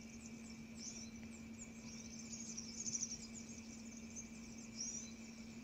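Faint birdsong of small birds: quick, high chirps and twitters, busiest around the middle and again near the end, over a steady faint high-pitched hum.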